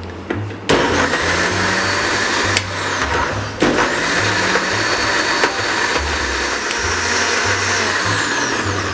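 Electric countertop blender grinding coriander, soaked tamarind pulp and spices into a thick chutney paste. It starts about a second in, stops briefly after a couple of seconds, then starts again and runs until near the end. Soft background music plays underneath.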